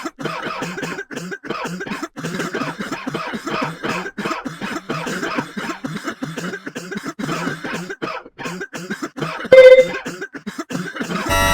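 A person coughing over and over in rapid short bursts, several a second. About nine and a half seconds in, a brief, very loud steady tone cuts in, and music starts at the very end.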